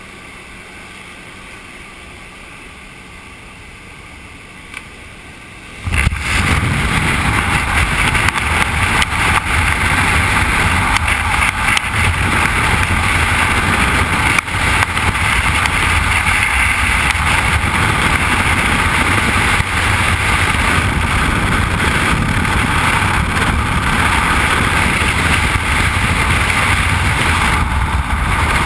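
Jump plane's engine and propeller droning through the open door, then about six seconds in a sudden change to loud, steady wind rushing over a helmet-mounted camera's microphone in skydiving freefall.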